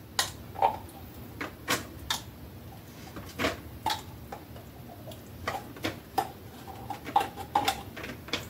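Irregular light taps and clicks of kitchen utensils against a bowl or container, one or two a second, some with a short ringing clink, as garlic is added to a sauce.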